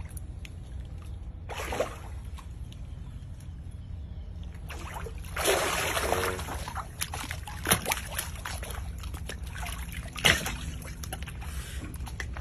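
Pond water sloshing and splashing as an alligator swims and lunges at the surface. The splashing is loudest about five to six seconds in, and two sharp knocks come near eight and ten seconds in.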